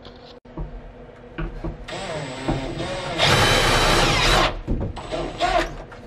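Handheld power drill running for about two and a half seconds, much louder for its last second or so, then stopping.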